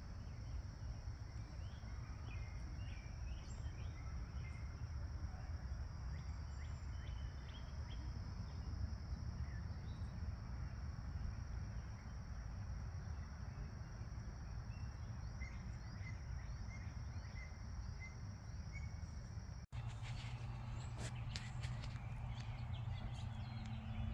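Outdoor ambience: a steady low rumble and a steady high insect-like tone with many short bird chirps. About 20 seconds in, it cuts off abruptly to a steady low hum with a few sharp clicks.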